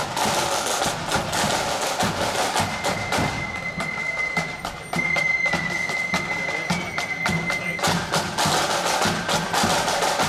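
Marching band drums playing a quick, rattling marching rhythm of sharp snare strikes, with a thin high held note running through the middle few seconds.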